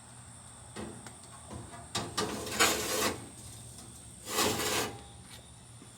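Hot charcoal being tipped from a chimney starter into the smoker's firebox: two rasping, rattling scrapes, about two seconds in and again about four seconds in.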